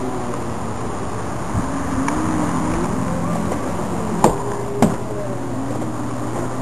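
Steady low machine hum, with a thin wavering tone gliding up and down over it and two sharp clicks about four and five seconds in.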